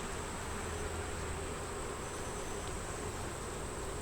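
Honey bees buzzing steadily around an opened hive.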